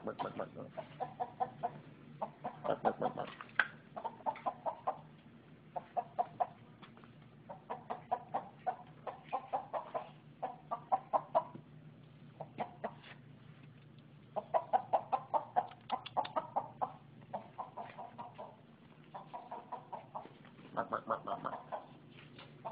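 Chicken clucking in quick runs of short clucks, about ten runs with brief pauses between, over a faint steady low hum.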